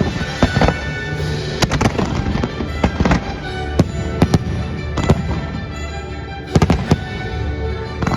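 Fireworks bursting: sharp bangs at irregular intervals, with a rapid cluster about six and a half seconds in, over the show's music soundtrack.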